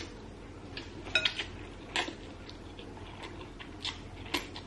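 Close-miked eating: scattered wet clicks and smacks of chewing instant noodles, with noodles being slurped in through the lips near the end.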